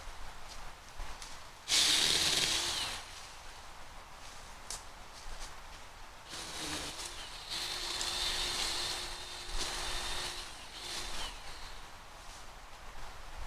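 Battery-powered 6-inch mini chainsaw's electric motor whining in two runs: a short loud burst about two seconds in, then a longer run from about six to eleven seconds. Its pitch dips now and then as the chain bites into branches.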